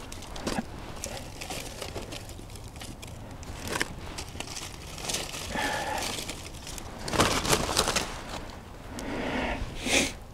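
Dry birch bark and twigs rustling and crinkling as they are handled and set by a small kindling fire, in irregular bursts with scattered snaps, the loudest a little past the middle and just before the end.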